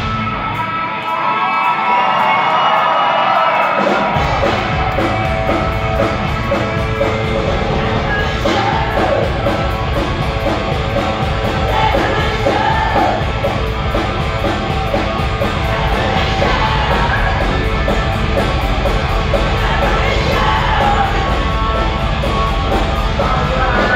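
Heavy metal band playing live: distorted electric guitar, bass and drums, with a woman singing. The bass and drums drop out for the first few seconds, leaving the guitar alone, and the full band crashes back in about four seconds in; crowd shouts now and then.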